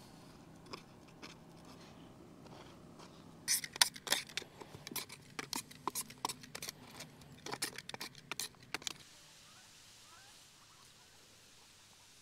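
A spatula scraping and tapping ground sweetcorn out of a plastic cup into groundbait: a quick run of sharp clicks and scrapes from about three and a half seconds in until about nine seconds. After that only a faint steady hiss remains.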